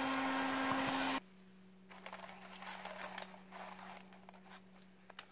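Heat gun blowing with a steady hum, cut off abruptly about a second in. Then light rustling and small clicks as plastic shells are handled on a paper sheet, over a faint hum.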